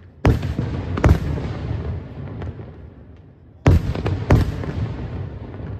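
Aerial firework shells bursting overhead: four loud bangs in two pairs, one pair within the first second and another pair about four seconds in, each trailing off in a rumbling echo.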